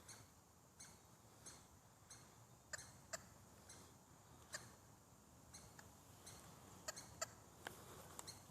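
Squirrels giving alarm chirps at the sight of coyotes: a series of short, sharp calls at uneven spacing, about one or two a second.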